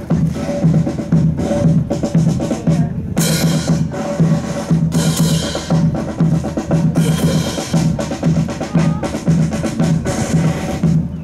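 Marching band drums, bass drum and snare, playing a steady march cadence at about two beats a second. A short crash cuts in roughly every two seconds.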